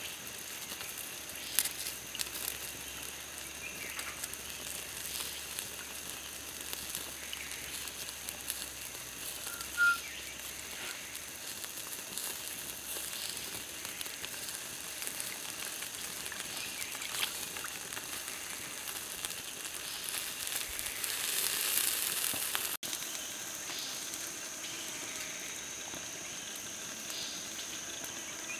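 Whole fish on a bamboo skewer sizzling and crackling over glowing wood embers, with scattered sharp crackles and a swell of hissing a little after twenty seconds in. A steady high insect drone runs underneath, and a brief high chirp sounds about ten seconds in.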